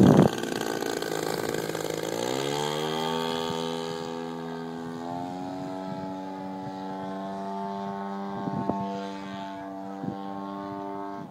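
Radio-controlled aerobatic model plane flying, its engine and propeller droning; the pitch climbs steeply about two seconds in as the engine speeds up, steps up again around five seconds, then holds steady as the plane climbs away. A brief loud burst of wind on the microphone right at the start.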